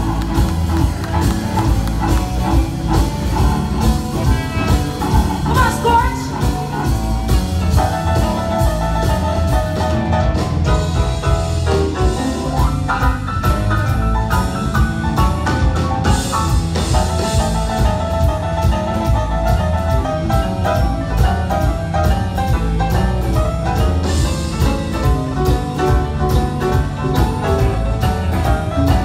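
Live blues-rock band playing with electric guitars, bass, drum kit and keyboards, a lead line of notes running over a steady drum beat.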